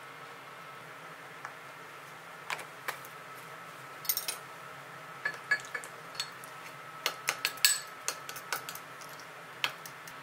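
A metal spoon clinking and scraping against a small glass bowl while stirring soy-sauce koji into mayonnaise: irregular sharp clinks, thickest in the second half.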